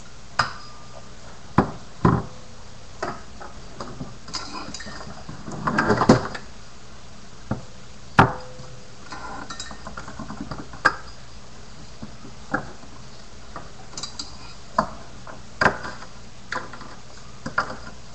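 Toy finger BMX clacking and tapping on a wooden desk and ramp as it is ridden by hand: irregular sharp clicks and knocks. There is a short scrape about six seconds in.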